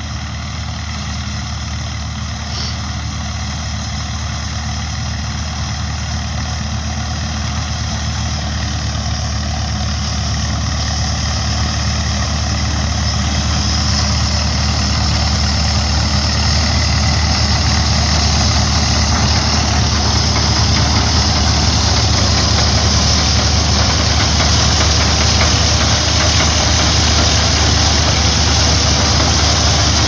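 Vintage Allis-Chalmers tractor's engine running steadily as it tows and drives an old pull-type header harvesting grain, getting gradually louder as it approaches.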